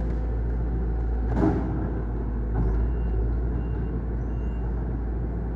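Komatsu PC200 hydraulic excavator's diesel engine running steadily, with a brief rushing hiss about a second and a half in.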